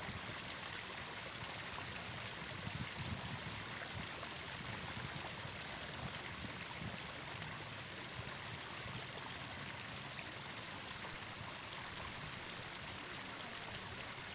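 Faint, steady wash of river water at a weedy bank.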